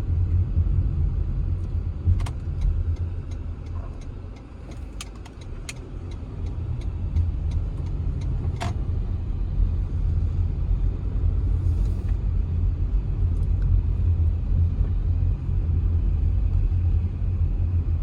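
Car driving slowly, a steady low road and engine rumble that eases for a moment about four seconds in, with a few sharp clicks along the way.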